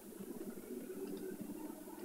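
Faint steady background noise with a low hum: room tone, with no distinct sound event.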